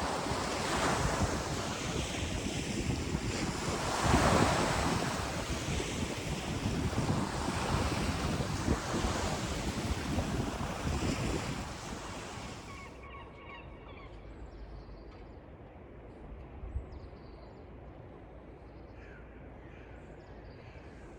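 Sea surf washing in, with wind buffeting the microphone, in slow swells of rushing noise. About twelve seconds in it drops much quieter and duller.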